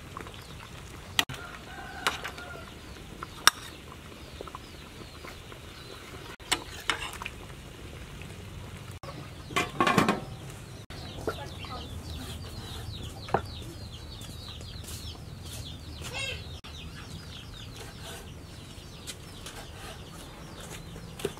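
Chickens clucking in the background, with a few sharp metallic clicks and knocks of utensils against a pot scattered through.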